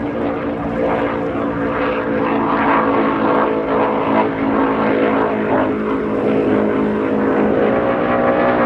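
A 2019 Skater 438 race boat's twin 750 hp Sterling engines running hard at speed, a loud, steady drone.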